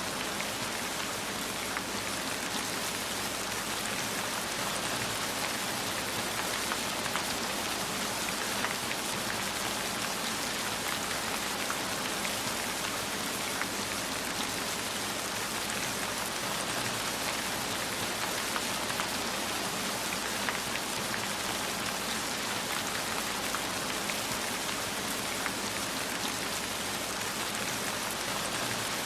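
Steady rain falling: an even hiss with many single drops ticking through it.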